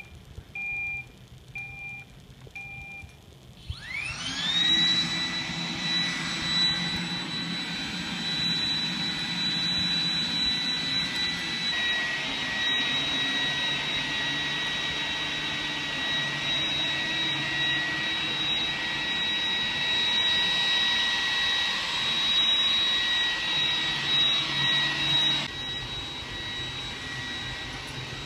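iRobot Roomba robot vacuum starting a cleaning run: a few short electronic beeps, then its vacuum motor spins up with a sharply rising whine about four seconds in and settles into a steady high whine over the brush and wheel noise. The sound drops somewhat a few seconds before the end.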